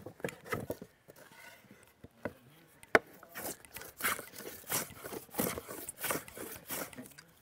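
Drawknife shaving a wooden board held in a shaving horse: a series of short scraping strokes, about one every two-thirds of a second, with a single sharp knock about three seconds in.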